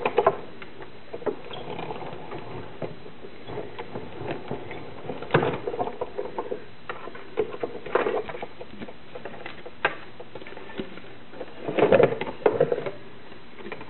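Sizzix Big Shot hand-cranked die-cutting and embossing machine being cranked, an embossing folder with cardstock rolling through between its plastic plates. Irregular clicks, creaks and rubbing, louder about five, eight and twelve seconds in.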